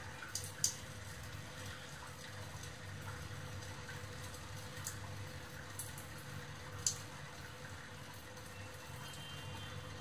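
Thin stream of water from a kitchen faucet trickling steadily into a stainless steel sink, with a few sharp ticks scattered through it and a steady low hum underneath.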